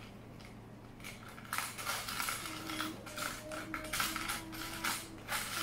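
Small plastic building bricks clattering and clicking against each other and a plastic bowl as a hand rummages through them, a quick run of clicks starting about a second and a half in.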